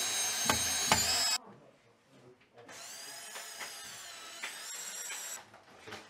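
Cordless drill driving a screw through a plastic pipe clip into a wall: a high, steady motor whine that stops about a second and a half in, then a second, quieter run for a little over two and a half seconds.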